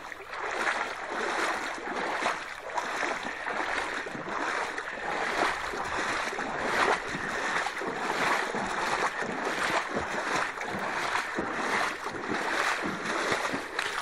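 Muddy rain-fed stream flowing, a steady rushing of water.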